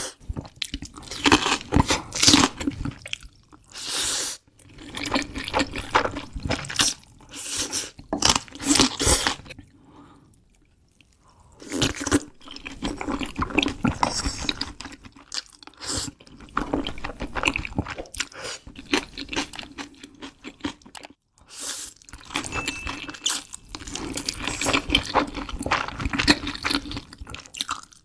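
Close-miked eating sounds: irregular crunching and chewing, with wet mouth sounds. The eating pauses for a couple of seconds about ten seconds in.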